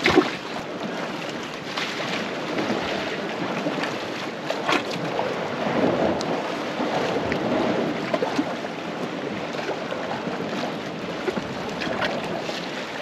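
Sea washing against the rocks at the foot of a cliff, with wind buffeting the microphone; a brief knock right at the start.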